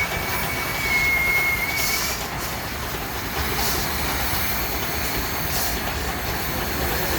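Steam traction engine running quietly: a steady low rumble with a few soft hisses of steam. A thin, high whistle tone sounds for about the first two seconds.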